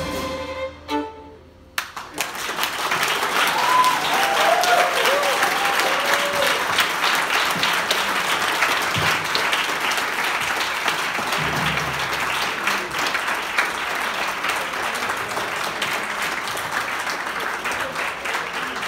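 Two violins end a piece on a held note in the first second; after a short pause the audience breaks into steady applause that runs on to the end.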